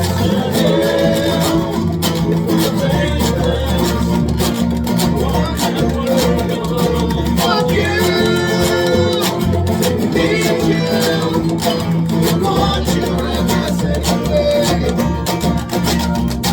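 Live band playing a song, with guitar strummed over a full mix of pitched instruments.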